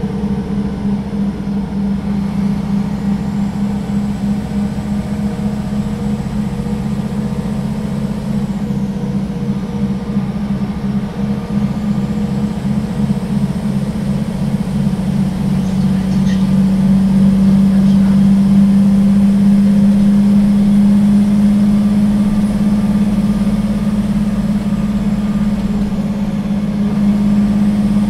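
Solaris Urbino III 12 city bus's diesel engine running as the bus drives, heard from inside the passenger cabin: a steady drone that grows somewhat louder a little past halfway and again near the end.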